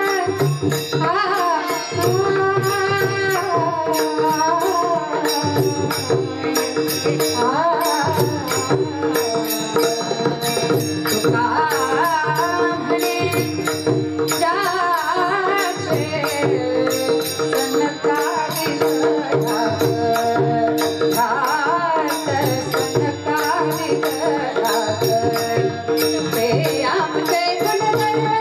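A woman singing a Marathi bhajan, her melody gliding and ornamented, over a steady held drone and a regular percussion beat of low drum strokes and sharp high ticks.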